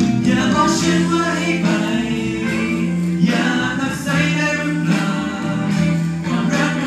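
A man and a woman singing a duet through microphones over backing music, with long held notes.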